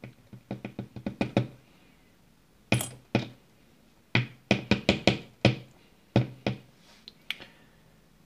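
Quick clusters of sharp metallic taps and clicks as the plug of a profile lock cylinder is knocked against a parts tray to shake out its key pins. There are a run of taps at the start, two more about three seconds in, and a faster run of about eight taps from about four seconds in.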